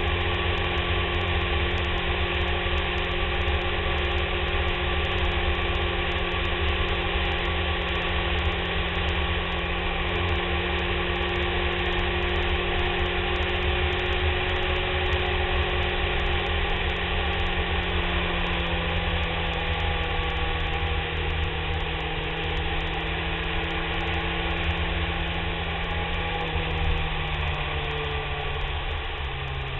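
BMW K1300S inline-four engine running at a steady cruising speed, with wind buffeting and road noise on the fairing-mounted camera. About two-thirds of the way through, the engine pitch slowly falls and the sound eases off as the bike slows.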